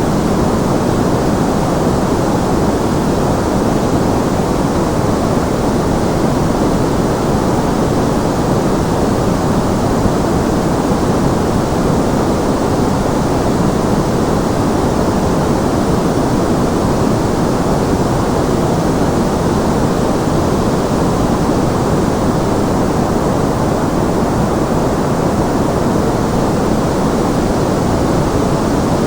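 Steady, unbroken white noise with no changes at all. Most of its energy sits in the low and middle range and thins out above the treble, so it comes across as a deep, even rush rather than a bright hiss.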